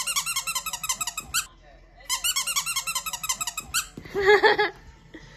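Plush squeaky dog toy squeaked rapidly in two runs of about a second and a half each, with a short pause between. Near the end comes a short, loud, high cry.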